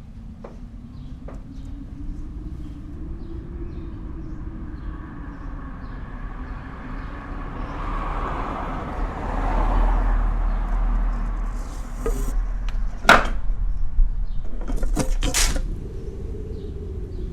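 Outdoor ambience with faint bird chirps over a low hum. A rumble builds and fades in the middle, like a passing vehicle, followed by a few sharp knocks.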